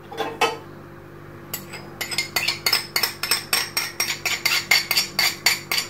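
Metal spoon scraping and clinking against a small ceramic saucer as ghee is scraped off into a frying pan: a couple of taps at first, then from about a second and a half in a quick run of about five clinks a second. A steady low hum runs underneath.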